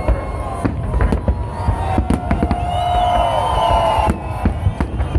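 Aerial fireworks shells bursting in quick, irregular succession, many sharp reports over a dense low rumble. Drawn-out tones run among the bursts, loudest near the middle.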